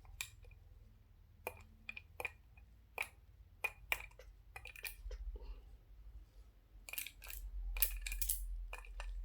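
Irregular sharp clicks of small steel ball bearings being picked out of a Shimano Dura-Ace 7600 track hub, with a denser run of clicking and rustling near the end.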